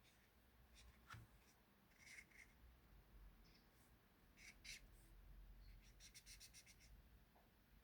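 Near silence with faint scratches and light clicks from hand crafting work on a squishy, including a quick run of clicks a little before the end.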